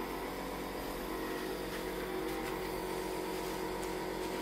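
A small electric motor or appliance running with a steady hum, holding several even tones throughout.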